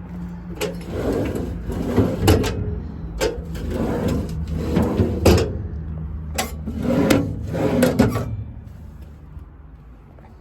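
A run of metal rattling and clattering with sharp clicks, in about half a dozen bursts over roughly eight seconds, from handling of a truck's service body, over a steady low hum.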